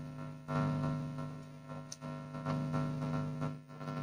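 Steady electrical mains hum, with a few soft clicking mouth noises from someone chewing a mouthful of noodles.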